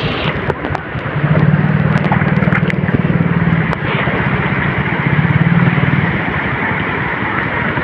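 Steady rushing noise of a shallow river running over stones, with a low drone underneath from about a second in until about six seconds.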